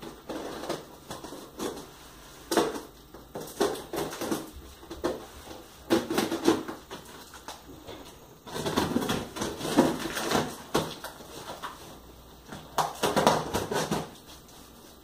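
Packing tape being cut and torn from a cardboard shipping box, with scraping, ripping and cardboard rustling in repeated bursts, the longest run about two-thirds of the way through.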